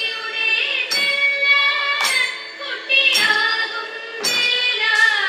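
Thiruvathira dance song: a woman's voice singing a gliding melody, with a sharp percussive stroke marking the beat about once a second.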